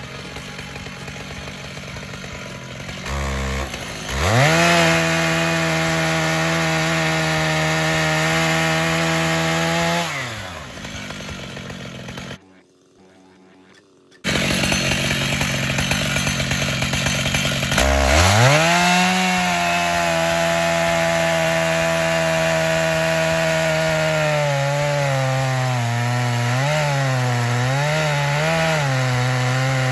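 Stihl MS 881 two-stroke chainsaw in a chainsaw mill, idling, then revving to full throttle and holding steady before dropping back to idle. After a brief drop-out it revs up again and cuts through a white oak log, its pitch sagging and wavering under the load of the cut.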